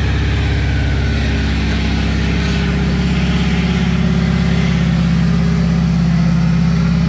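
Small engine of a homemade radio-controlled mini crane, fitted with an extra generator, running steadily while the crane holds and slews a suspended load; it runs smoothly and without fault.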